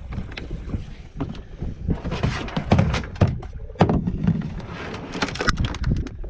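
Irregular knocks and clunks on a kayak, with wind rumbling on the microphone.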